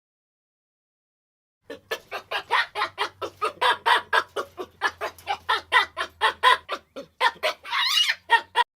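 Chicken clucking rapidly in a fast run of short clucks, about four or five a second, beginning after a short silence, with a higher rising squawk near the end.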